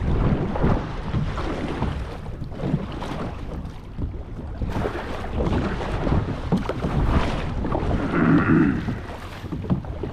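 Small hunting boat moving across the water, with water sloshing and wind buffeting the microphone, and a brief, sharper sound about eight seconds in.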